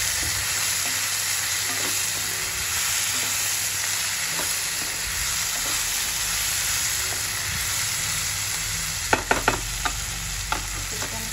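Potatoes, green beans and tomato sizzling steadily in a nonstick kadhai while a spatula stirs them, with a quick run of sharp spatula clicks against the pan about nine seconds in and one or two more near the end.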